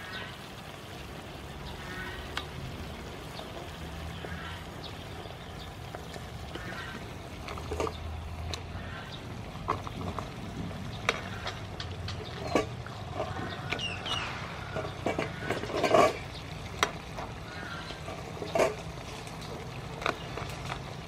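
Tamarind sauce bubbling in a frying pan while split lobster tails are laid in, their shells knocking and clattering against the pan and each other at irregular moments, the loudest knock about 16 seconds in.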